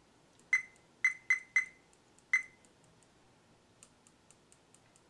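Fluke 87 multimeter's beeper giving five short high beeps, three of them in quick succession, followed near the end by a few faint light clicks.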